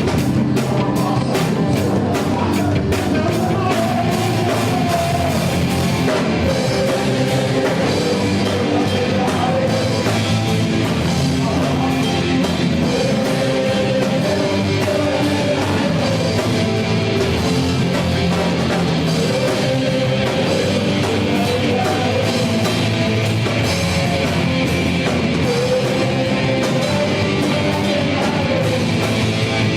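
Live gospel rock worship band playing, with drum kit, guitars and a sung melody.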